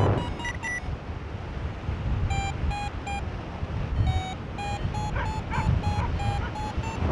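Paragliding variometer beeping in short, evenly spaced beeps, the sound it makes while the glider is climbing in lift. The beeps pause for about a second and a half, then resume, creeping slightly higher in pitch near the end. Wind rushes over the microphone in gusts underneath.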